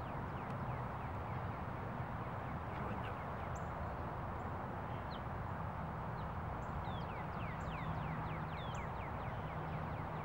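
Outdoor background with a steady low hum, over which birds call in quick, short falling chirps, most of them in a cluster in the second half.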